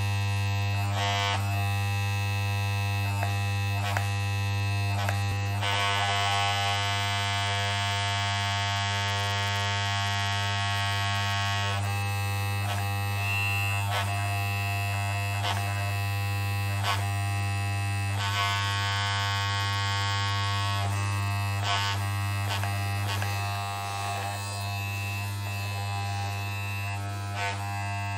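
Electric hair clippers running with a steady buzzing hum. Twice, for several seconds, a harsher hissing rattle rises over the hum, with light clicks scattered through.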